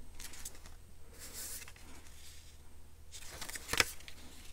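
Paper and cardstock pieces rustling and sliding as they are handled, in short bursts, with a sharper tap or click a little under four seconds in.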